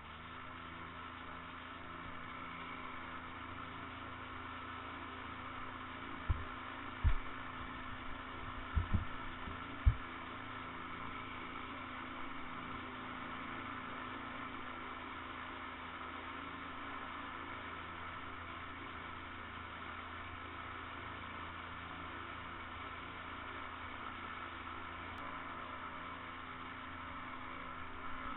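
Trike's Rotax 912 four-cylinder engine running steadily as a drone, with a handful of sharp low thumps between about six and ten seconds in.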